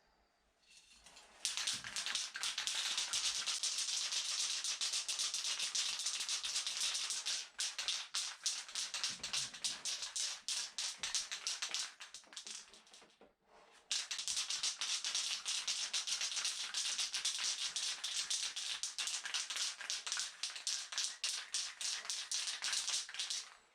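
Paint spraying in two long hissing passes of about ten seconds each, with a short break between, as engine parts get a coat of black and anthracite grey.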